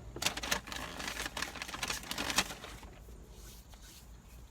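Close-up crackling and rustling, a dense run of small clicks for about two and a half seconds, then thinning out to quieter scattered noise.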